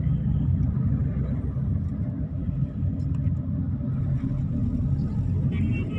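Steady low rumble of a car's engine and tyres heard from inside the cabin while driving in town traffic.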